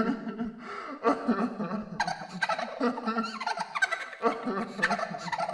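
Creepy, crazed laughter: a rapid, staccato cackle that goes on without a break.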